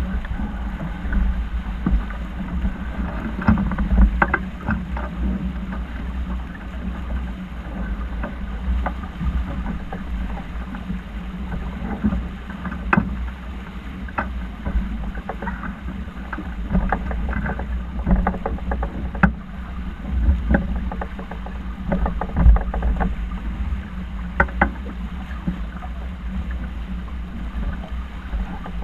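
Wind buffeting the microphone and water noise aboard a sailing yacht, a steady low rumble with a constant low hum under it, broken by many sharp clicks and knocks.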